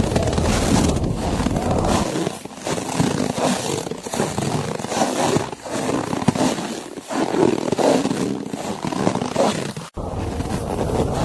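Blizzard wind blowing as a steady, noisy rush. The deep rumble drops away about two seconds in, leaving an uneven, gusting hiss, and returns after a sudden brief cut near the end.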